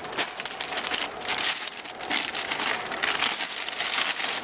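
Anti-static shielding bag crinkling and rustling in a continuous run of crackles as the replacement server system board is handled and drawn out of it.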